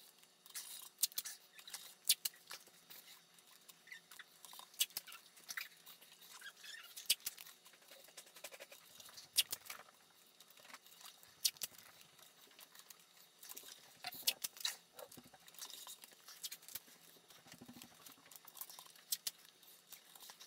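Blue painter's tape crinkling and crackling as small pieces are handled and pressed down by hand, with irregular sharp clicks and ticks throughout.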